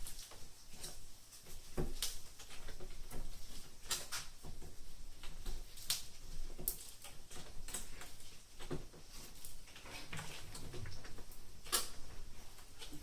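Irregular light clicks and taps from hand work, a second or two apart, with a sharper click near the end.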